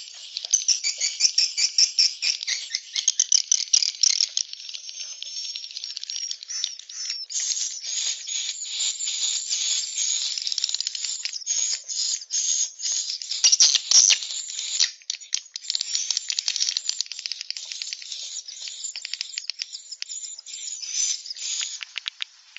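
A bird's rapid, high-pitched chattering song: fast trills of quick notes broken by short pauses.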